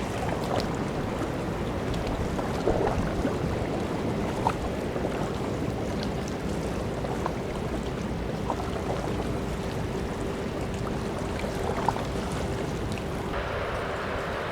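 Steady rush of the Tagus river's water flowing below the Belver dam, with a faint steady hum running under it and the hiss brightening slightly near the end.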